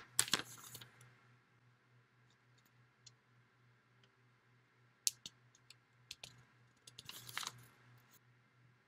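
Light handling clicks and taps close to the laptop microphone: a sharp knock at the very start, a few scattered clicks about five seconds in, and a short rustling cluster around seven seconds in, over a faint steady low hum.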